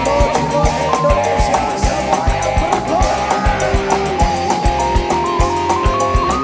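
Dangdut koplo band playing an instrumental passage with no vocals: a stepping melody line over a steady, evenly spaced drum and bass beat.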